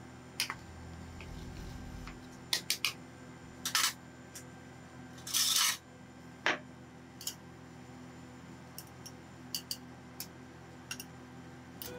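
Metal scraper tapping and scraping against the steel freezing pan of a rolled ice cream machine: scattered short clicks, with a few longer scrapes in the middle, the longest about five seconds in. A faint steady hum lies underneath.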